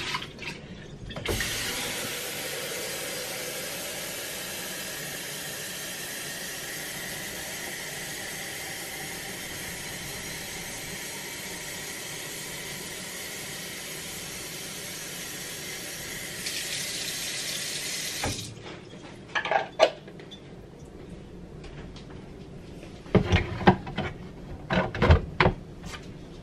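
A tap running steadily for about seventeen seconds, refilling the coffee maker's water tank, then shutting off. A few knocks and clatters follow near the end.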